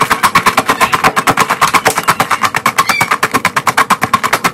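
Takis rolled tortilla chips being crushed in a plastic cup: a stick pounds down into the cup in a fast, steady rhythm of about nine strokes a second, each one a crunching knock.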